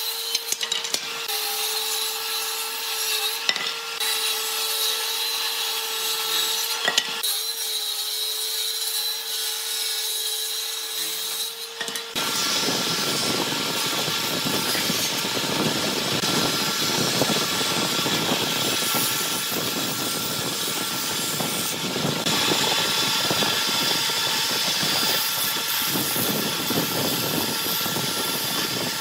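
Hitachi combination woodworking machine: first its table saw runs with a steady hum as a board is ripped along the fence, with a few sharp clicks. About twelve seconds in, it changes to the jointer's spinning cutterhead planing a board fed across its bed, a dense, continuous shaving noise with a steady whine.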